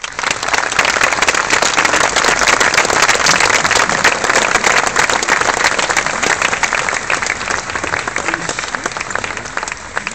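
A large audience applauding, a dense patter of many hands clapping that slowly dies away over the last few seconds.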